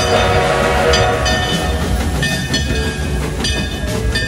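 Added sound effects of a full-size train, with a horn-like chord fading over the first second and a repeating rail clatter, mixed with background music.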